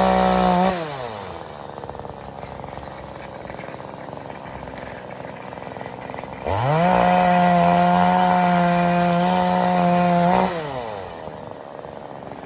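Two-stroke chainsaw revved up to full throttle, held at a high steady pitch, and let drop back to idle, twice: briefly at the start and again for about four seconds in the second half.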